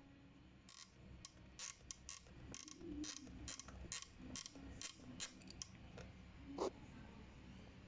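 The temperature dial of a Sokany steam iron being turned by hand, clicking through its settings in a quick run of small plastic clicks, about three a second, followed by one louder click near the end.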